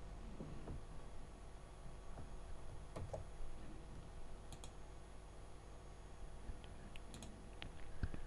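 A few scattered computer mouse clicks and keyboard key presses, faint and spread out.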